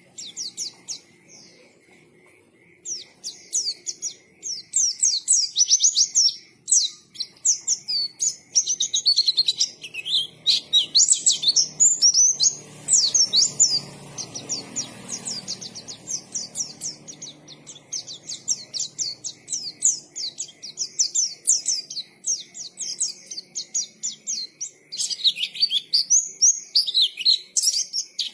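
Pleci (white-eye, Zosterops) singing a fast, continuous song of rapid high chirps and trills, starting about three seconds in after a short lull.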